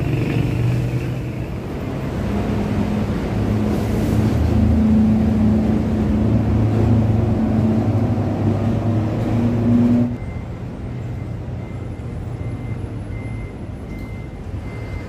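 Heavy road traffic on the bridge: a large vehicle's engine running with a steady, deep drone. It cuts off suddenly about two-thirds of the way through, leaving quieter road noise and a faint, regularly repeating high beep.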